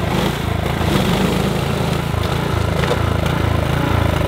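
Single-stage gas snowblower running as it clears and throws snow. Its small engine makes a steady sound with an uneven low pulse.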